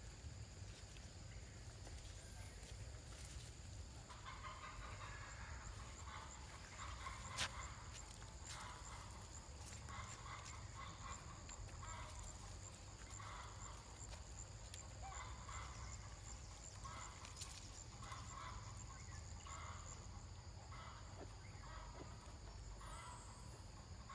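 Faint short animal calls, repeated every second or so from about four seconds in, over a steady high tone.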